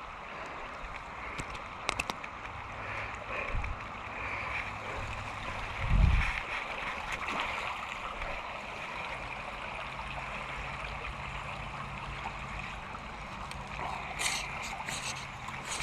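Creek water running steadily, with a single dull thump about six seconds in.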